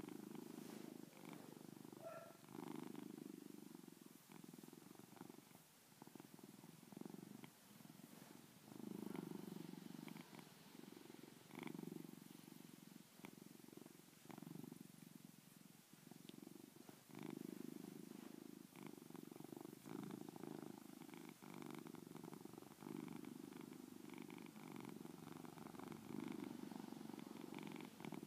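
Domestic tabby cat purring softly and continuously, the purr swelling and easing every second or two with its breathing in and out; a contented purr.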